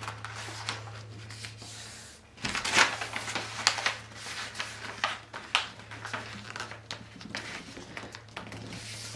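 Intermittent soft rustling and light taps of fabric being handled on a tabletop, over a steady low hum.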